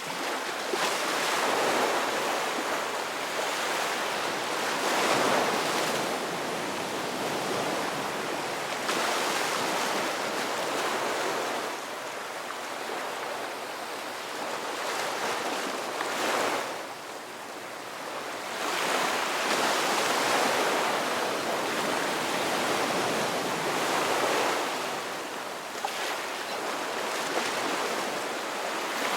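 Ocean surf: waves breaking and washing in, the rushing noise swelling and ebbing every few seconds.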